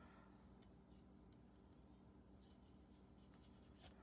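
Near silence: room tone with a faint steady hum and a few faint ticks and scratches from handling, the slightly loudest near the end.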